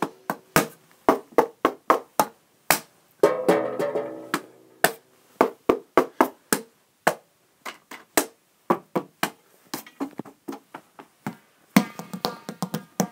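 Improvised percussion on household found-sound instruments: a long, irregular run of sharp taps and knocks, with a stretch of ringing, rattling sound about three seconds in and again near the end.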